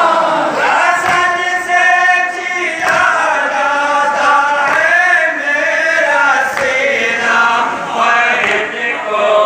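A crowd of men singing a noha, a Shia mourning lament, together in long held lines.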